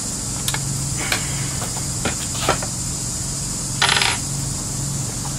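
Several light metallic clicks and clinks, with a short louder scrape a little under four seconds in.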